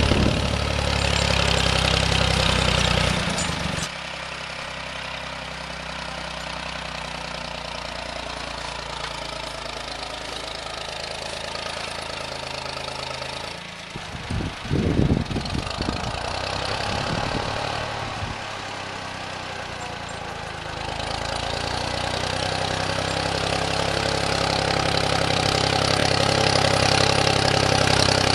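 Engine of a snowplowing vehicle running, loud at first and quieter from about four seconds in, with a short louder burst about fifteen seconds in, then growing louder again over the last several seconds.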